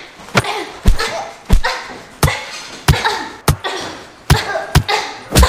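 Boxing-glove punches landing in rapid succession, about nine sharp hits, with short vocal grunts between several of them.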